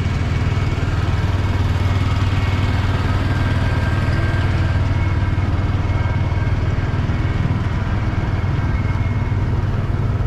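An engine running steadily at an even speed, with a strong low drone and no change in pitch.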